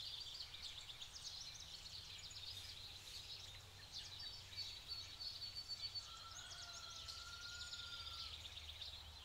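Faint early-morning chorus of small birds chirping and trilling, with one longer whistle-like note a little past midway, over a low steady background rumble.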